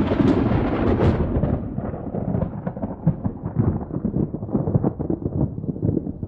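Recorded thunder: a rolling rumble with crackling through it, loudest at first and slowly fading.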